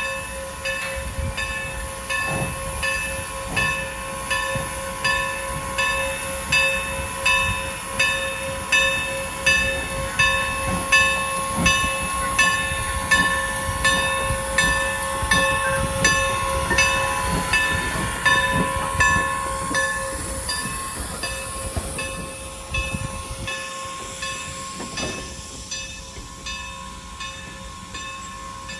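A steam train hauled by the former Norfolk & Western locomotive 475 passes with a low rumble and clatter, while a bell dings steadily about twice a second. It grows louder toward the middle, and the bell stops at about twenty seconds in as the train sound fades.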